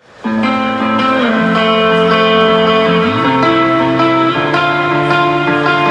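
Guitar music played through a portable Bluetooth speaker for a sound test: held, ringing notes with a couple of sliding pitch bends, starting just after the opening.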